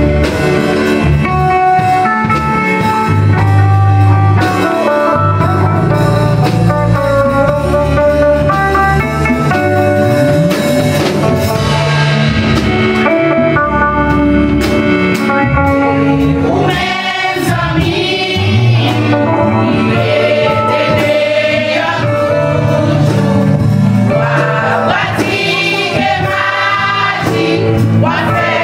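Live gospel music: a church choir singing with a band of conga drums, drum kit and keyboard, the choir's voices coming through most strongly in the second half.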